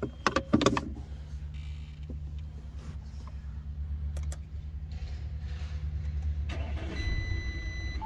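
A few sharp clicks as the plastic key fob is set down on the rubber cupholder mat, then the Audi's engine is started with the push button, the fob's battery being flat, and runs at idle with a low steady rumble that grows louder about four seconds in. About a second before the end a steady high tone sounds.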